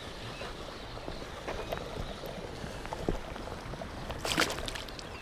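Steady rush of stream water, with a short splash about four seconds in as a released bass swims off.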